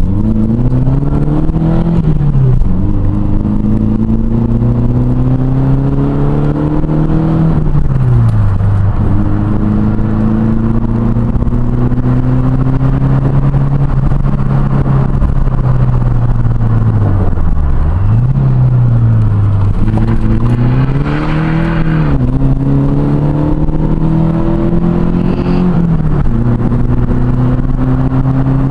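Toyota Starlet KP61's 1.3-litre 4K-E four-cylinder engine heard from inside the cabin under hard driving: its note climbs steadily and drops sharply at each gear change or lift, several times over.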